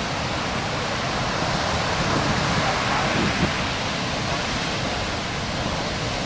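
Heavy ocean surf breaking, a steady roar of big waves that swells a little louder about two to three seconds in.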